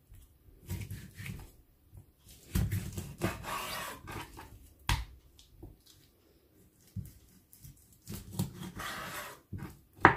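Large kitchen knife cutting through raw chicken and its joints on a wooden cutting board: irregular spells of scraping and rubbing, with a sharp knock about five seconds in and a louder one near the end.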